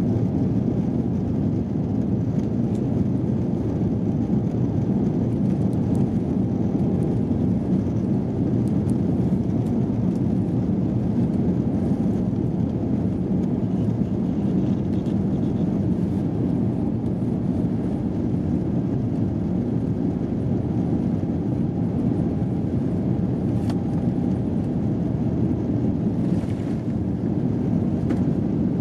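Cabin noise of an Airbus A350 on its takeoff roll: the Rolls-Royce Trent XWB engines running at takeoff thrust together with the wheels rumbling on a wet runway, a steady, deep rumble.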